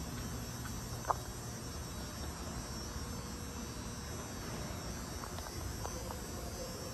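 Steady low hum with a faint high whine, and a single sharp click about a second in.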